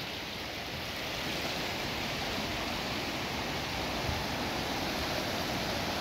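Water of a small cascade rushing steadily, getting a little louder about a second in.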